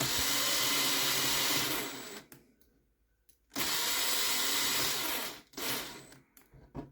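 Small handheld power drill running in two steady bursts of about two seconds each, with a short gap between them.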